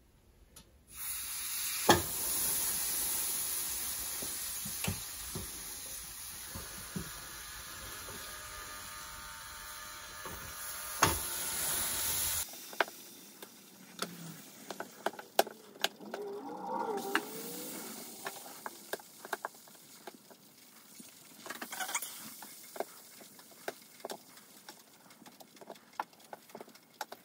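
Batter-soaked bread slices sizzling on a hot nonstick electric griddle set to 350 °F. The sizzle starts about a second in as the first slice goes down and is loud for the first half, with a couple of sharp clicks. It then drops to a quieter sizzle with light taps as more slices are laid on.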